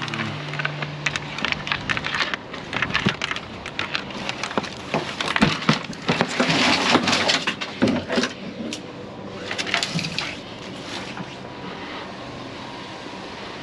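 Strings of Christmas lights being handled and dumped into a container: dense, irregular clattering and crackling of plastic bulbs and wire that thins out near the end.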